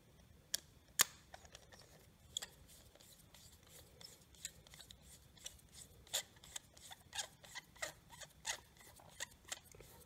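Flat-blade screwdriver turning the small brass jet in the central post of a Predator generator's aluminium carburetor: a run of small metal clicks and scrapes, a few sharp ones early and then coming much faster from about four seconds in.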